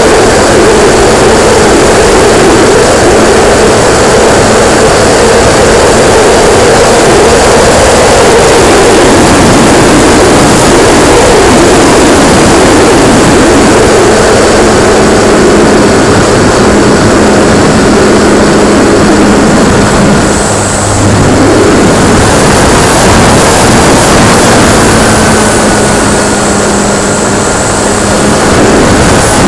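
Radio-controlled P-51D Mustang model's motor and propeller running in flight, heard from a camera mounted on the plane, under loud wind rush; the motor's tone shifts and drops briefly about two-thirds of the way through.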